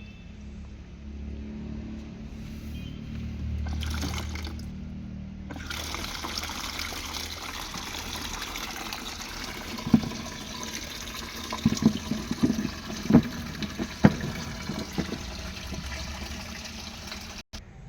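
Water running and splashing into a buffalo's drinking bowl, starting about five seconds in and flowing steadily, with a cluster of short sharp sounds in the middle.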